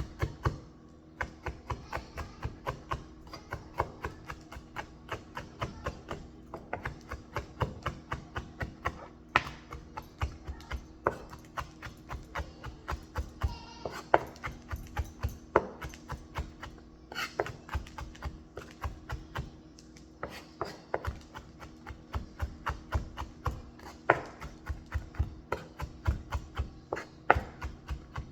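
Knife chopping on a cutting board, a steady run of quick strokes about three to four a second with a few short pauses, over a faint steady hum.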